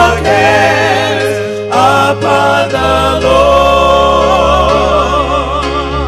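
Gospel music: a choir singing held, wavering notes over steady bass notes that change every second or two.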